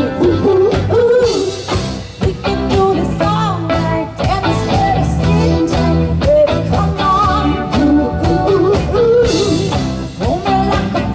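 Background music: an upbeat song with a singing voice, guitar and a steady drum beat.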